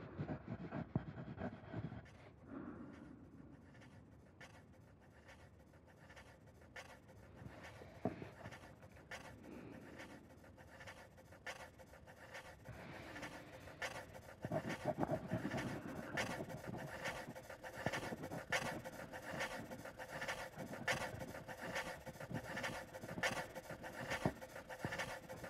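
Quiet panting breaths with scratchy rustles and sharp clicks. The clicks grow denser and fall into an even rhythm about halfway through, over a faint steady hum.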